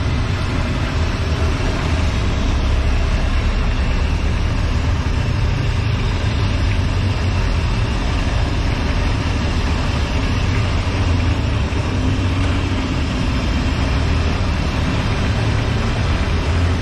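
Battered tempe deep-frying in a wok of hot oil, a steady sizzle over a constant low rumble.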